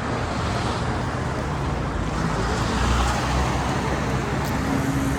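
Road traffic on a busy city street: a steady rumble of passing vehicles and engines that swells about three seconds in, with a steady low engine hum joining near the end.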